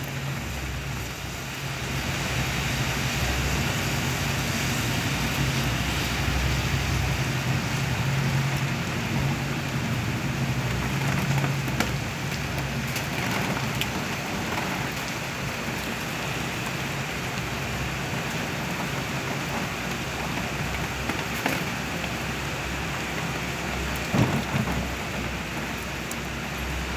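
Heavy rain falling steadily and splashing on wet pavement, with a few sharp drip or splash ticks. A low steady hum runs underneath during the first half.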